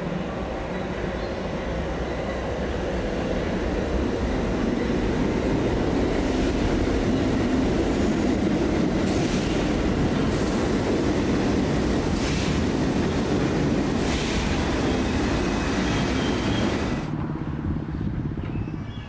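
New York City Subway shuttle train approaching and passing close by, its wheels rumbling on the rails and growing louder as it goes past, with a few brief sharp clatters. The sound cuts off suddenly near the end.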